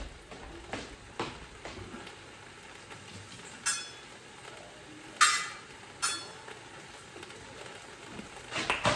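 Cabbage frying quietly in olive oil in a pan, under scattered clinks and knocks of cookware being moved about. The loudest is a ringing metal clank about five seconds in, with another shortly after.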